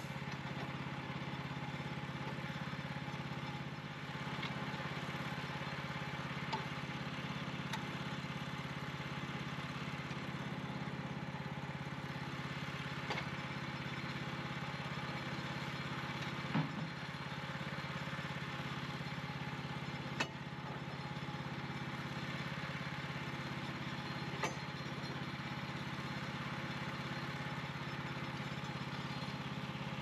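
Norwood LumberMate LM29 portable bandsaw mill's engine running at a steady speed, with a few short knocks and clatters scattered through as the sawhead and log are worked.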